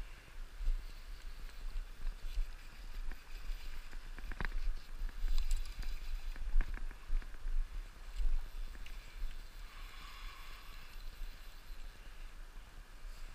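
River water flowing and sloshing close to a wading angler's action-camera microphone, with a low, uneven rumble on the mic. A few sharp clicks sound around the middle.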